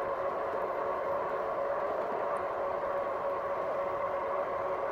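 A RadMini electric bike riding at a steady speed: a constant motor whine at one fixed pitch over a steady rush of road and wind noise.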